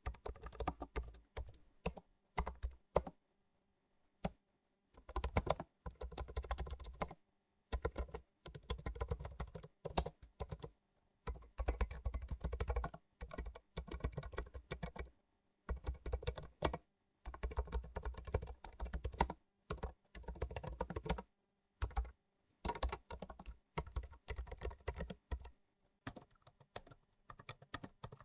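Computer keyboard typing: rapid runs of keystroke clicks in bursts of a second or two, broken by short silent pauses.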